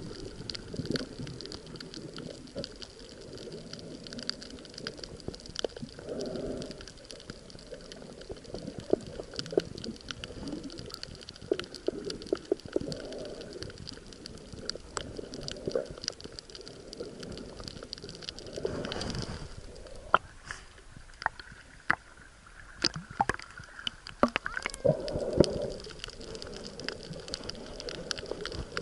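Underwater ambience: muffled water gurgling and sloshing, with many scattered sharp clicks throughout and two louder rushes of water in the second half.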